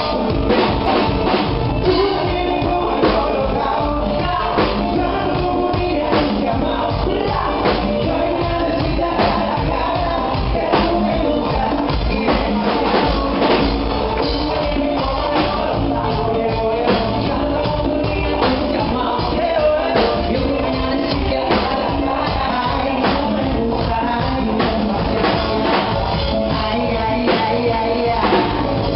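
Rock music with singing and a drum kit playing steadily.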